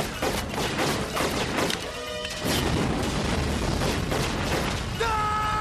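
Action-drama soundtrack of gunfire and an explosion mixed under music. A rapid run of sharp shots or impacts fills the first two seconds. After a brief dip a dense rumbling blast carries on from about halfway, and a held chord of music comes in near the end.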